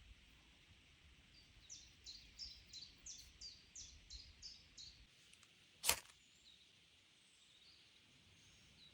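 Faint bird song outdoors: a run of about ten short, high, falling notes, roughly three a second, followed about a second later by a single sharp click.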